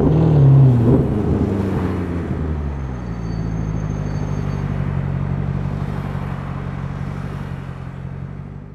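Maserati Quattroporte 4.2 V8 with a Tubi Style sports exhaust, heard from inside the cabin. Its revs fall back from a blip in the first second, then it idles steadily, fading out near the end.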